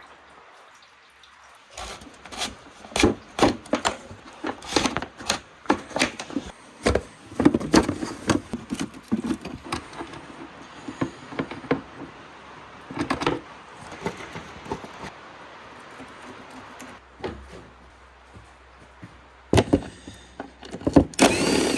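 Irregular knocks, clicks and rattles of hand-work on an ATV in a workshop: tools and parts being handled. A quieter stretch follows, then a louder cluster of knocks and a scrape near the end.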